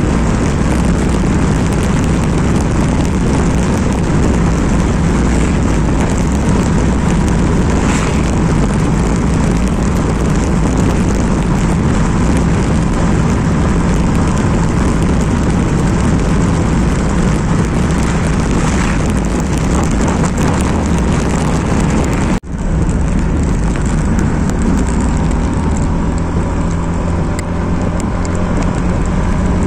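Motorcycle on the move: wind rushing over the rider's microphone, with a steady engine hum underneath. The sound breaks off for an instant about three-quarters of the way through, then carries on as before.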